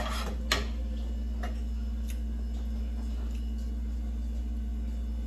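A steady low hum with a few light clicks in the first two seconds, then only the hum.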